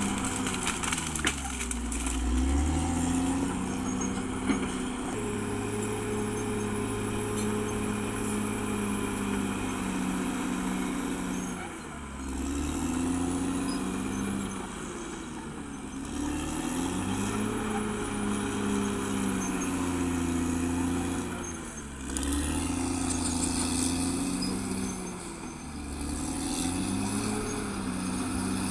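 Diesel engine of a Caterpillar D6R XL crawler bulldozer running at work, its engine speed dipping and climbing back about five times. A few clanks in the first couple of seconds.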